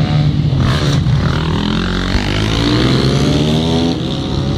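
Supermoto motorcycle engine revving hard, its pitch climbing through the gears and then dropping sharply near the end as the rider shuts off.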